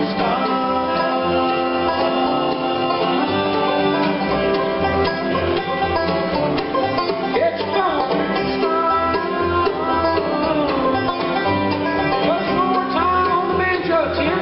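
Bluegrass band playing live: banjo, fiddle, mandolin, acoustic guitars and upright bass together, with the bass keeping a steady beat.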